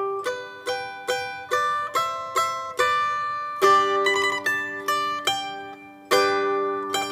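Liuqin, the small four-string Chinese pear-shaped lute, picked with a plectrum in a lively tune: single plucked notes about two to three a second, then loud strummed chords about three and a half seconds in and again near the end.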